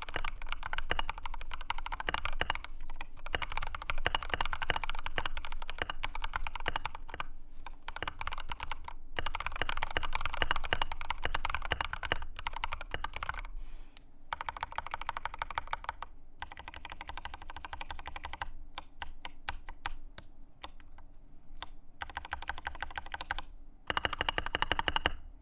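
Typing on a Boyi GK75 mechanical keyboard with pre-lubed Skyloong Red linear switches: rapid keystrokes in long runs with short pauses. The typing is softer through the second half, with a louder flurry near the end.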